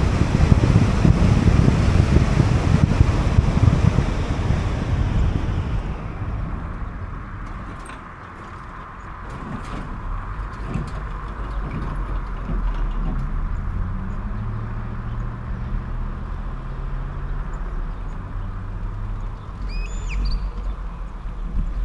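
A car on the road: loud road and wind noise that dies away over the first six seconds, leaving a quieter low engine hum. A few short high chirps near the end.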